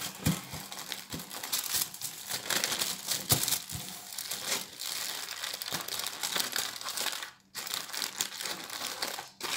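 Aluminium foil being crumpled and folded by hand into a lid, crinkling and crackling on and off, with short breaks about seven and a half seconds in and again near the end.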